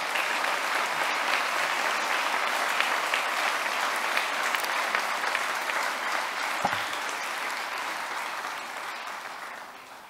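Audience applauding steadily, dying away near the end. A single low thump about six and a half seconds in.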